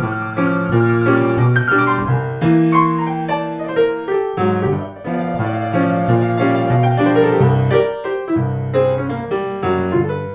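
Background piano music: a blues tune.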